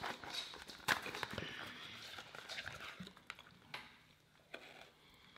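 Packaging of a dessert pie being worked open by hand: light rustling with several sharp clicks, one about a second in and a few more around three to four seconds in.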